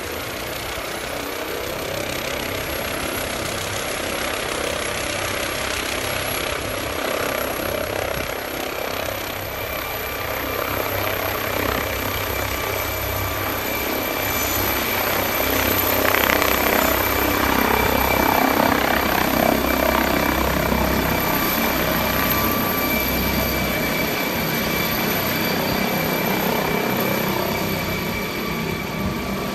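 MD 902 Explorer air ambulance helicopter taking off: a steady turbine whine over the rotor noise, growing louder about halfway through as it lifts off and climbs away.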